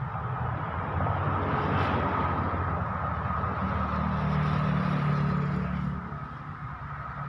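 An engine running, with a steady low hum that swells louder over a few seconds and eases back about six seconds in.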